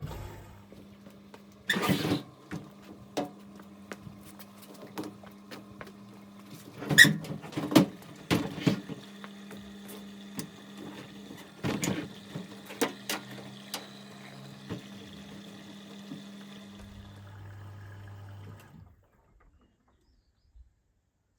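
Beko washing machine running an empty wash cycle: a steady motor hum while the drum turns, with scattered knocks and clicks. The hum stops about three seconds before the end.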